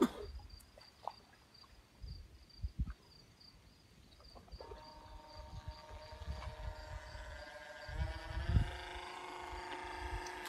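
Small electric RC speedboat's motor whining as it tows a floating box. The motor is faint for the first few seconds, comes in clearly about halfway through, and rises in pitch near the end. Insects chirp steadily throughout, and low wind thumps hit the microphone.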